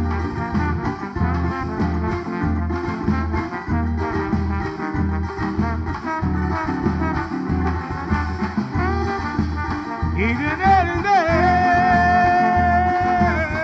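Band music for a São João song, with a steady drum beat. About ten seconds in, a long note slides up and is held for a few seconds.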